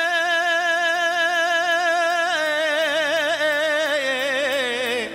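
A man singing one long held note into a microphone, steady at first and then with wide vibrato and ornamental turns, sliding down and breaking off near the end. A faint low accompaniment sits underneath.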